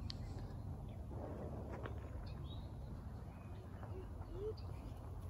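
Wild birds chirping faintly in woodland, a few short scattered chirps, over a steady low rumble. Two short low rising calls come about four seconds in.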